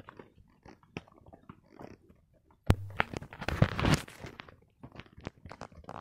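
Horse hooves on a rocky dirt trail: irregular clopping and crunching steps at a walk. About three seconds in, a louder burst of noise lasts about a second and a half.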